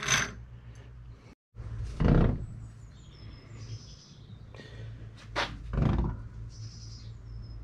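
A few short knocks and handling noises as an assembled steel differential with its crown wheel is set down and picked up on a workbench, over a steady low hum.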